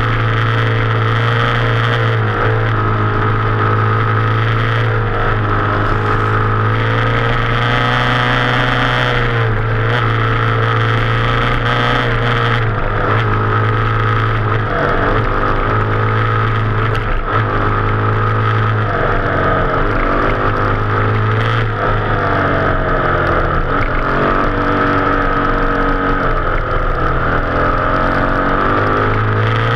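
Yamaha YZ250F dirt bike's single-cylinder four-stroke engine running hard under throttle, its pitch climbing and dropping again and again as the rider accelerates and shifts through the gears.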